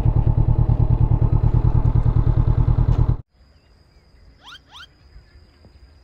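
Honda CB500X's parallel-twin engine and riding noise, loud with a fast steady pulsing, that cuts off suddenly about three seconds in. Then a quiet background with a steady high drone and two quick rising chirps.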